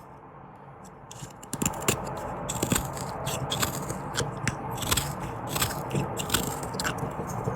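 A blade shaving wood in hand-carving of a walnut spoon: a run of short scraping cuts, about three a second, starting about one and a half seconds in.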